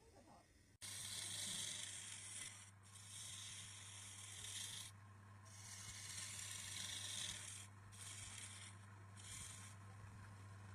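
Slow abrasive strokes over wood, each one to two seconds long with short pauses between them, like hand sanding or rasping, over a steady low hum.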